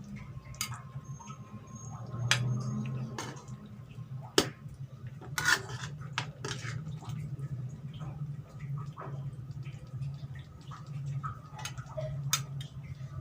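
Utensils and dishes clinking and knocking irregularly, as cooked rendang is handled and served, over a steady low hum.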